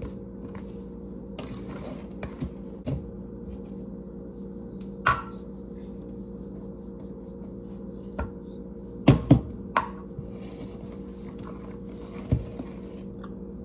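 Electric mixer running steadily in cookie dough as flour is added, with a few sharp knocks against the bowl: one about five seconds in, a loud pair about nine seconds in and another near the end.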